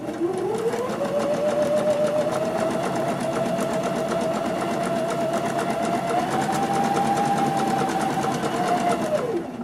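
Electric domestic sewing machine stitching a zig-zag buttonhole side. The motor whine rises as it speeds up at the start, runs steadily over rapid needle strokes, picks up a little about six seconds in, then winds down and stops near the end.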